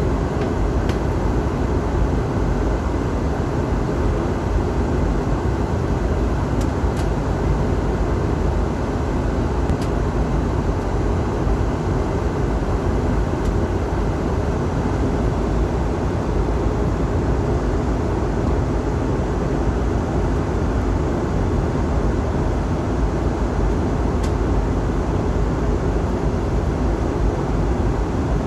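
Steady cabin noise inside an Airbus A320 descending toward landing: an even rumble of engines and rushing air, heaviest in the low range, with a few faint clicks.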